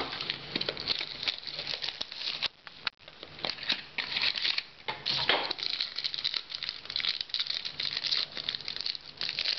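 Crinkling and rustling of a foil trading-card pack wrapper and the cards inside being handled, a dense run of irregular small clicks and crackles with a short lull about three seconds in.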